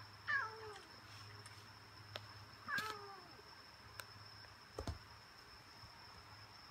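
Domestic cat meowing twice, about two and a half seconds apart, each meow falling in pitch. A few light clicks and a soft thump follow.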